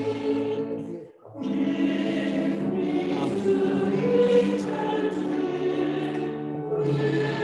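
Church choir singing a hymn in a resonant church, with a brief pause between lines about a second in.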